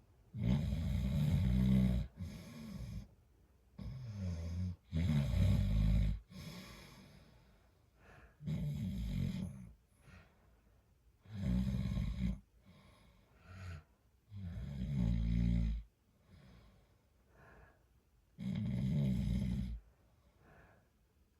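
A man snoring in steady sleep breathing: a loud snore every three to four seconds, with quiet pauses between breaths.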